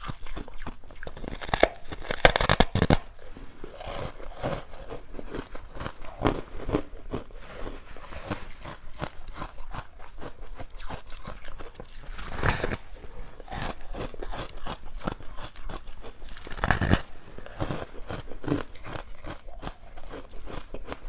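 Close-miked biting and chewing of a frozen ice treat: a steady run of small crisp crackles, with louder crunches about two seconds in, around twelve seconds and again around seventeen seconds.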